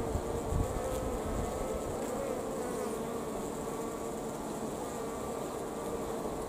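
A crowd of honeybees on an open brood frame buzzing, a steady hum that wavers a little in pitch. A brief low thump comes about half a second in.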